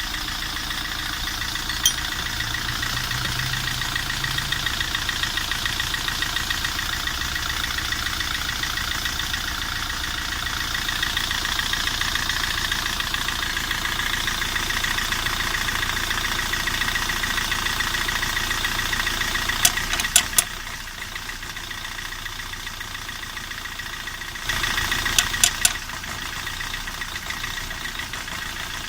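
Opel car engine running with a fast, even knocking, a fault the owner is tracking down along with engine vibration. The sound drops in level for a few seconds past the middle, with a few sharp clicks just before and again as it comes back up.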